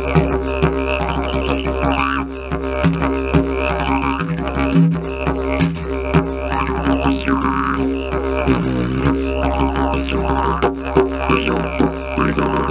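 Horizonde didgeridoo in C# (432 Hz tuning) playing a continuous low drone. Rhythmic pulses and shifting mouth shapes sweep its higher overtones, and the drone dips briefly twice near the middle.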